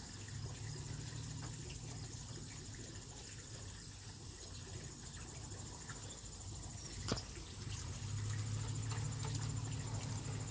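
Electric motor and gearing of a G-scale model locomotive humming low, growing louder about eight seconds in as the train approaches, over a steady high insect trill. A single sharp click comes about seven seconds in.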